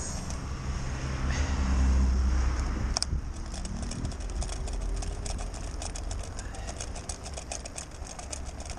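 Low engine rumble of a passing motorboat, swelling for a second or so about two seconds in. About three seconds in there is one sharp snap, and a quick run of faint ticks follows it.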